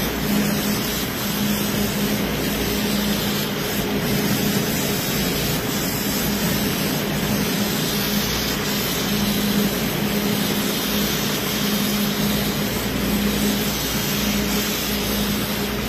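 Compressed-air spray gun hissing steadily as it sprays paint, over a steady low hum.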